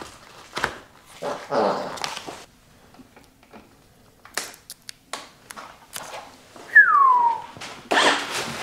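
A short whining call that slides down in pitch, about seven seconds in, among scattered clicks and knocks of parts being handled on a bike's handlebars.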